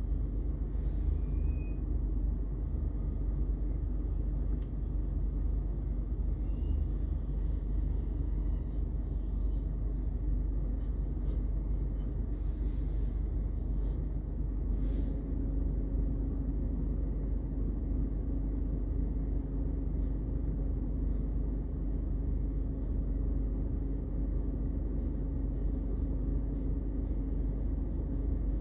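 Rear-loader garbage truck's diesel engine idling with a steady low rumble, a steady hum growing stronger from about halfway through. A few short hisses of air sound over it.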